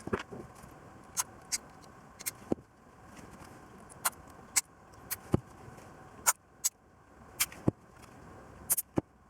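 Small hard parts and tools being handled during bench work: irregular sharp clicks and clinks, about a dozen over several seconds, over a faint steady hiss.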